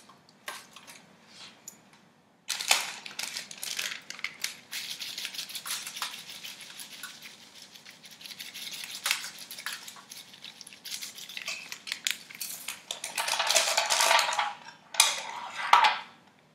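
Aluminium foil crinkling and rustling as it is handled and pushed up around a whole fish, with small clicks and taps. It starts about two and a half seconds in and is loudest near the end.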